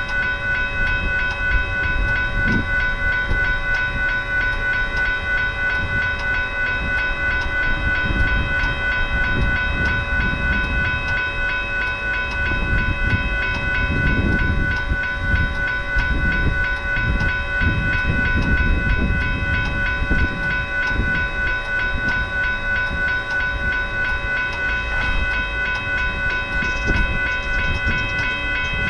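Railroad grade-crossing warning bells ringing rapidly and continuously while the crossing is activated, over an uneven low rumble of rail traffic.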